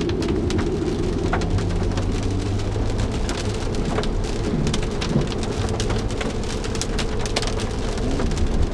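Rain ticking on the windshield and roof of a 2007 BMW 335i, heard inside the cabin while driving, over the steady low hum of the engine and the hiss of tyres on a wet road.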